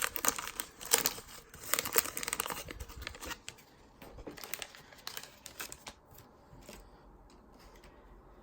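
Wax-paper wrapper of a 1985 Donruss baseball card pack being torn open and crinkled, loudest in the first three seconds. Lighter rustling follows and dies away about six seconds in.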